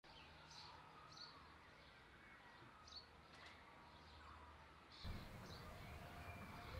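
Faint birdsong: scattered short chirps over a quiet outdoor background, which grows louder about five seconds in.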